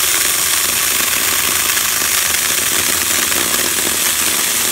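Saker 4-inch cordless 20-volt mini electric chainsaw running steadily, its chain cutting through a tree limb.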